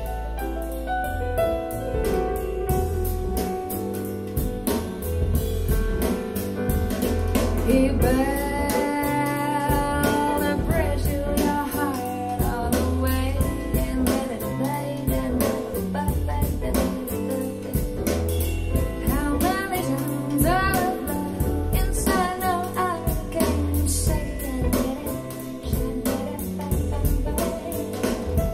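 Jazz song with singing over bass and drums.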